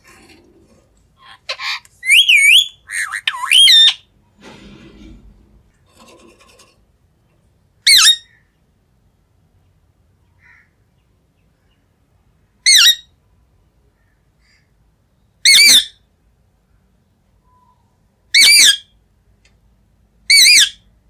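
Green parrot screeching: a quick run of loud, shrill calls with a wavering pitch in the first few seconds, some softer, lower sounds just after, then single short screeches every two to three seconds, five in all.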